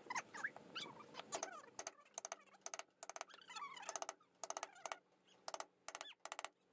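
Short crisp clicks and snaps of a hand carving gouge slicing chips from the wood, with an animal's high whining calls that glide up and down over them.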